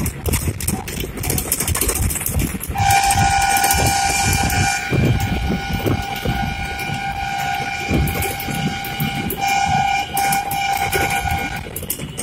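A horn on the moving vehicle sounds one long steady note, starting about three seconds in and held for about nine seconds before cutting off near the end. Under it runs the rumble and rattle of the vehicle in motion.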